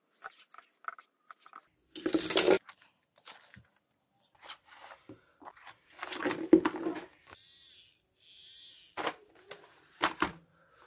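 Plastic blister pack of an electric eraser being handled, crinkling and rustling in irregular bursts, loudest about two seconds in and again around six seconds in. A couple of light knocks come near the end.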